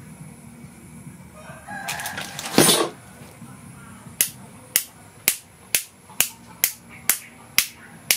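A rooster crows once in the background, one drawn-out call ending a little under three seconds in. From about four seconds in, sharp clicks repeat evenly about twice a second.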